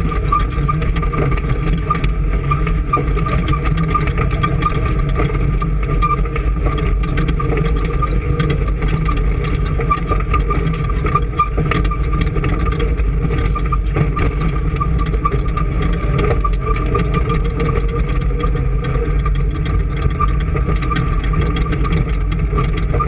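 An engine running steadily at an even speed, with a steady high whine over the low rumble.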